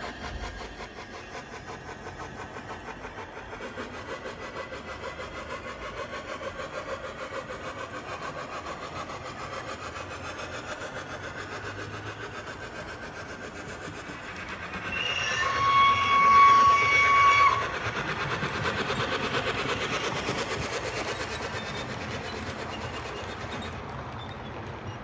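A model locomotive's DCC sound decoder playing running sounds through its onboard speaker as the train moves with its coaches, with steady rail and engine noise and a rhythmic clatter. About fifteen seconds in it sounds a loud two-note warning, a high note then a lower one, for about two seconds.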